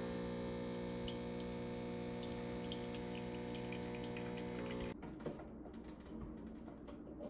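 A steady hum of many held tones with faint ticks, cutting off abruptly about five seconds in. After that only faint clicks and room noise remain.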